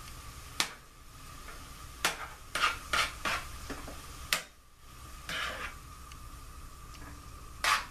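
A utensil stirring corn in a nonstick frying pan, with irregular scrapes and knocks against the pan.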